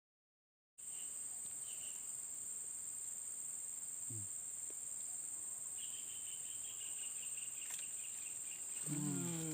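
A steady, high-pitched insect chorus in the buzzing, cricket-like drone of a tropical marsh. It cuts in about a second in after a moment of dead silence, and a fainter chirping trill joins it for a couple of seconds near the end.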